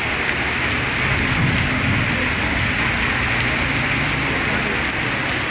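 Heavy rain pouring steadily onto a wet street.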